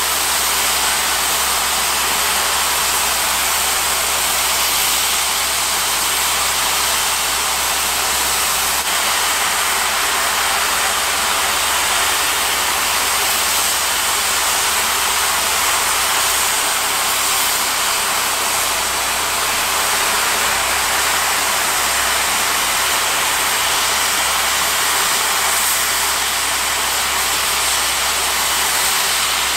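A steam locomotive standing in steam: a steady, unchanging hiss with a low rumble underneath.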